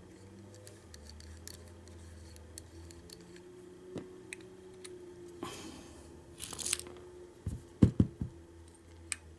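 Pin-tumbler deadbolt cylinder being taken apart by hand: small metal clicks and ticks as its springs and driver pins come out, a brief scraping rustle about halfway through, then a few sharp knocks near the end.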